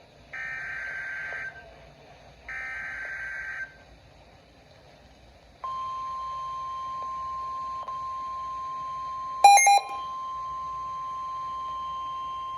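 NOAA Weather Radio alert signalling: two one-second bursts of buzzy digital data tones (the SAME header that starts a new warning), then, after a pause of about two seconds, the steady 1050 Hz weather alert tone. The tone is broken once, about nine and a half seconds in, by a brief loud beep.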